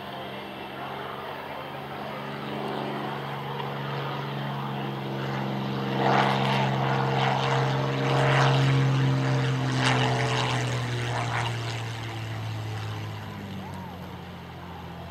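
Spitfire's piston engine running as it flies a low approach with wheels down, growing louder until it is closest, about halfway through, then fading and dropping slightly in pitch as it comes down to land.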